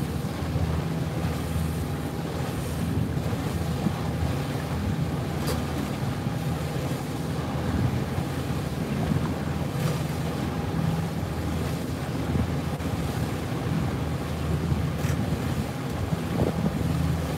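Steady drone of a small boat's engine running underway, with wind buffeting the microphone and water rushing past.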